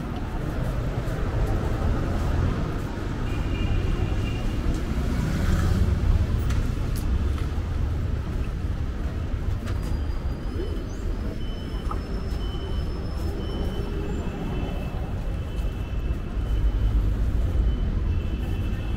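Steady low rumble of moving vehicles, with faint high-pitched tones coming and going from about halfway through.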